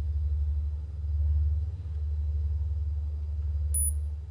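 Electronic drone from a live laptop sound performance: a deep, rumbling low hum with a fast flutter, swelling and dipping every couple of seconds, with a single short high ping near the end.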